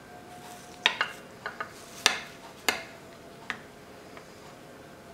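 Metal serving spoon scraping and clinking in a ceramic baking dish while scooping out baked macaroni and cheese with a crisp panko crust: about seven sharp clinks, the loudest about two seconds in.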